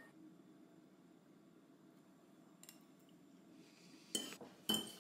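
Quiet room, then a metal fork clinks twice against a ceramic bowl near the end while scooping up food, each clink briefly ringing.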